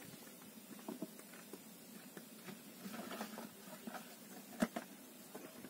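Faint handling noises: scattered small clicks and rustles, with one sharper click about two-thirds of the way through.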